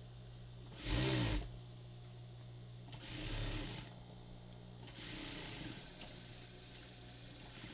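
Sewing machine stitching a cuff onto a shirt in three short runs, the first and loudest about a second in, the others at about three and five seconds, over a steady low hum.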